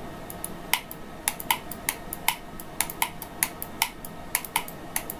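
Typing on a computer keyboard: a run of sharp, irregular key clicks, about four a second.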